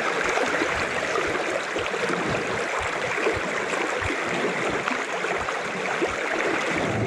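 Fast-flowing spring-fed river rushing past the bank: a steady, even rush of water, with occasional soft low bumps.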